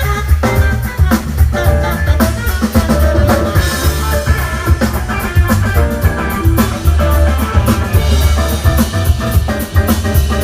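Live band playing, with drum kit and electric bass prominent under guitar and other instruments.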